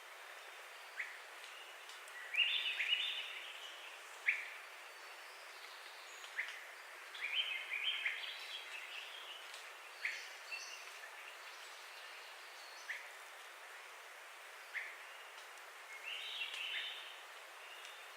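Forest birds calling over a steady background hiss: scattered single sharp chips, and three short warbling song phrases, one early, one near the middle and one near the end.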